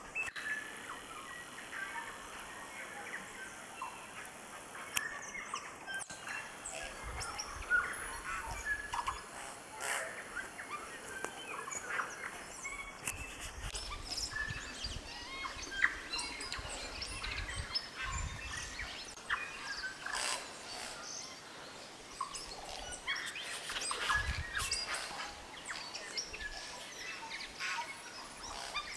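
Forest birds chirping and calling, with many short notes scattered throughout. A few low rumbles come and go underneath.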